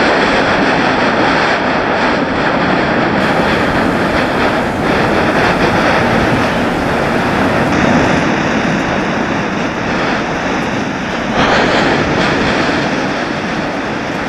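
Mount Yasur's Strombolian eruption: a loud, continuous rumbling roar as glowing lava bombs are blasted out of the crater and fall back, swelling again with a fresh surge about three-quarters of the way through.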